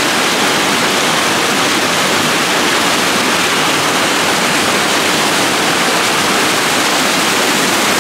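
Stream water at a lake outlet rushing through a log jam and over a small waterfall: a loud, steady, even rush.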